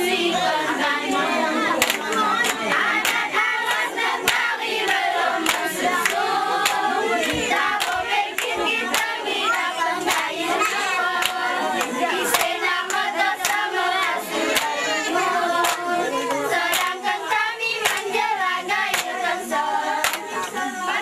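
A group of girls singing a chant together while clapping their hands in rhythm, as in the seated mesekat dance of the Alas people. Sharp claps fall several times a second over the singing.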